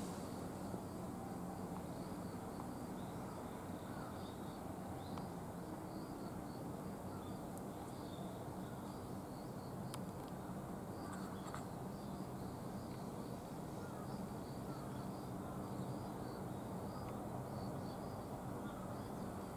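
Small birds chirping over a steady chorus of calling insects, with a low steady hum beneath.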